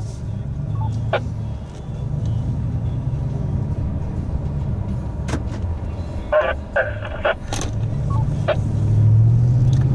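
Car cabin road and engine noise while driving, a steady low rumble that swells louder near the end. There are a few light clicks and a couple of brief voice fragments about two thirds of the way through.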